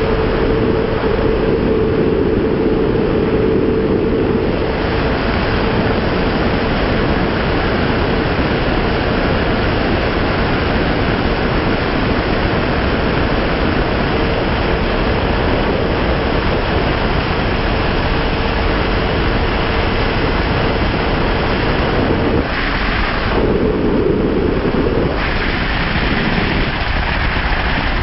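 Heavy wind rush on the microphone over the steady high note of a 2001 Honda CBR600F F4i's inline-four engine at full throttle, near 270 km/h. About 22 seconds in the engine note breaks off, comes back briefly, then fades as the throttle is rolled off and the bike slows.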